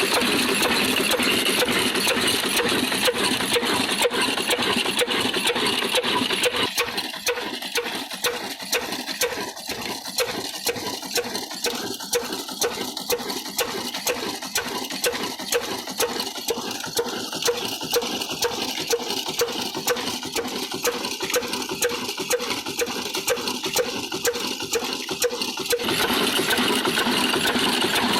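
Old stationary diesel engine running at low speed with an even beat of about two strokes a second. A denser, louder steady din covers the first six seconds and the last two.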